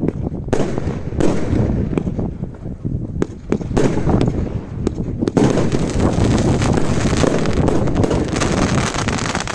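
Consumer fireworks going off: a series of sharp bangs, then from about five seconds in a dense, rapid run of crackling reports.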